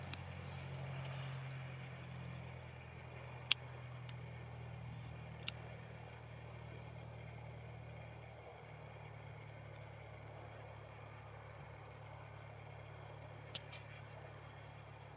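Socata TB-10 Tobago's four-cylinder Lycoming piston engine and propeller running at low taxi power, heard as a steady low hum that eases a little about halfway through. Three sharp clicks stand out over it.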